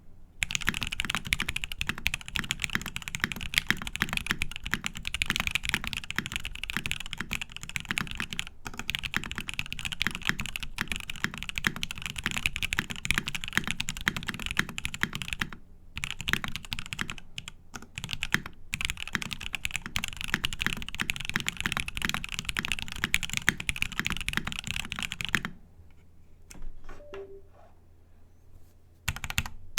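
Fast continuous typing on a top-mounted NRD Kaze prototype mechanical keyboard with an aluminum plate, lubed Gateron Ink Black linear switches and SA-profile keycaps. The typing breaks off briefly a couple of times, then stops for a few seconds near the end with only a few faint clicks before starting again.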